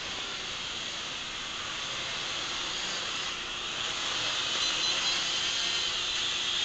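Small quadcopter drone's propellers whirring in flight, a steady high hiss-like buzz that slowly grows louder.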